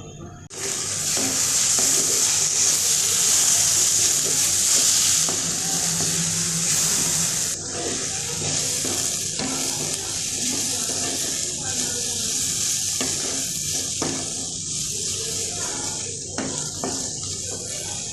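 Fried onions with ginger-garlic and cumin paste sizzling in hot oil in a kadai, starting abruptly about half a second in and loudest for the first several seconds. A spoon scrapes the pan now and then as the mixture is stirred.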